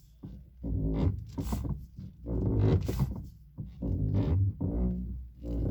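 2011 Lada Priora's steering squeaking loudly and unpleasantly as the wheel is turned: four drawn-out pitched groans in a row, each about a second long. The owner is unsure whether the electric power steering unit or the steering rack is at fault.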